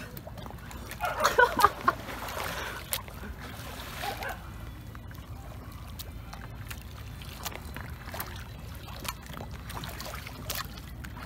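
Sea water sloshing and splashing around a swimmer, over a steady low rumble, with a louder flurry of splashing about a second in and scattered small clicks after.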